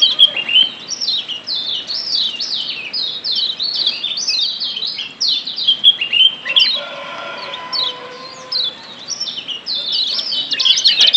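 Kecial kuning (Lombok yellow white-eye) giving rapid runs of sharp, downward-sliding 'ciak' chirps. They thin out past the middle, with a few lower held notes, then come thick and fast again near the end.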